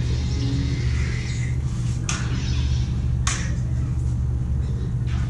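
Combat lightsaber blades striking each other twice, sharp cracks about two seconds in and again a second later, over a steady low hum.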